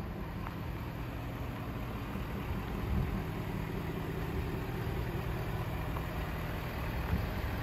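Ford F-550's 6.7-litre Power Stroke V8 diesel idling steadily while the dump body's hydraulic hoist raises the bed.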